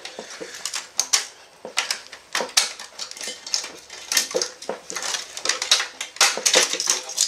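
Irregular clicks, rattles and rustling of a printer's wire harness and plastic cable guides being pulled and unclipped from its metal chassis by hand.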